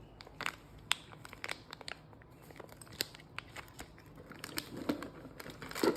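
Plastic packaging crinkling and rustling, with irregular small clicks and knocks as parts of a fog lamp switch kit are handled and unwrapped.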